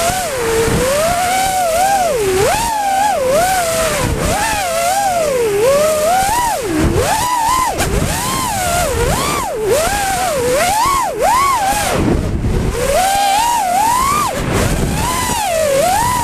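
Electric motors and propellers of an FPV quadcopter whining, the pitch swooping up and down every second or so as the throttle changes through turns and rolls, over a steady rush of air noise.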